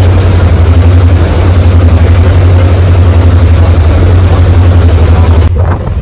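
Passenger ferry's engine droning with a steady, pulsing low hum over the rush of its churning wake and wind. About five and a half seconds in it cuts abruptly to a rougher rumble of wind on the microphone.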